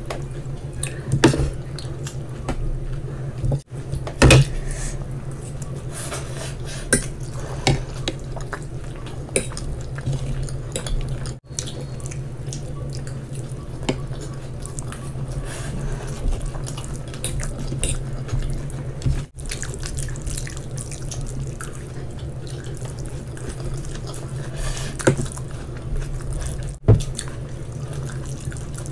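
Wet, saucy eating sounds: chewing of noodles and fried rice in manchurian gravy, with scattered clicks of a fork and spoon on ceramic plates and bowls. A steady low hum runs underneath, and the sound drops out briefly four times.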